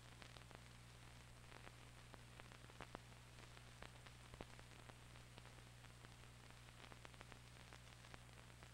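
Near silence: the faint noise floor of an old film soundtrack, a steady low hum and hiss with scattered small clicks and pops.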